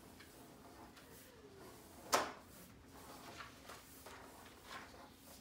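One sharp knock about two seconds in, then a few faint taps and rustles.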